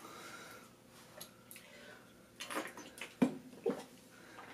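Quiet breathing and sharp breaths with a few short mouth clicks from a person reacting to a mouthful of sour citric acid powder.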